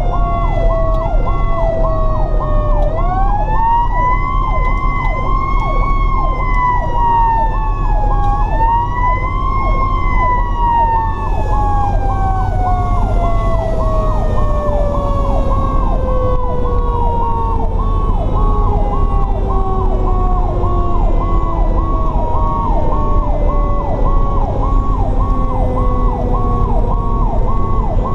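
Fire apparatus sirens heard from inside the cab while responding: one siren pulses rapidly up and down the whole time, while a second wails up, falls, wails up again, and then winds slowly down. A steady low engine and road drone runs underneath.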